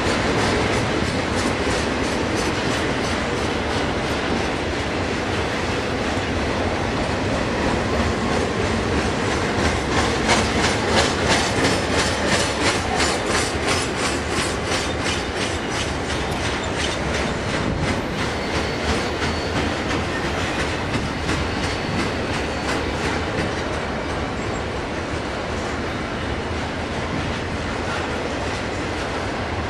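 Union Pacific double-stack container train's cars rolling past, the wheels clicking in a steady rhythm over the rail joints. The clicks are loudest about ten to fourteen seconds in.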